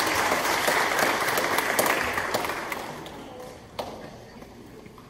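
Audience applauding, the clapping dying away about three seconds in; a single sharp knock follows about four seconds in.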